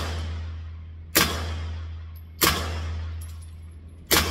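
Three single shots, about a second and a half apart, from an AP5-P 9mm pistol fitted with a SilencerCo Obsidian 9 suppressor and firing 115-grain rounds. Each shot is a sharp crack with a long echo that dies away in the indoor range, over a steady low hum, with a few light clicks between shots.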